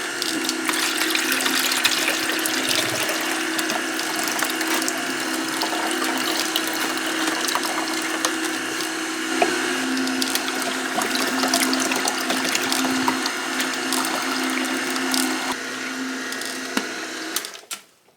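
Electric juicer running as whole cucumbers are fed into it: a steady motor hum under a dense crackle of produce being ground, cutting off abruptly near the end.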